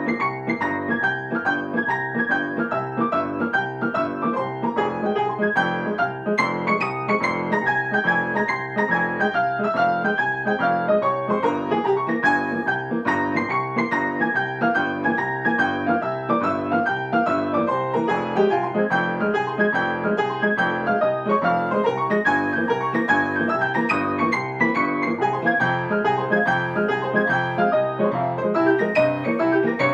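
Grand piano played four hands, two players at one keyboard, in a duet tarantella: a continuous stream of quick notes with falling runs.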